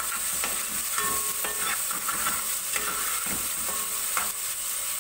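Ginger-garlic paste and whole spices frying in hot oil, a steady sizzle, while the masala is stirred with irregular scraping strokes against the pot.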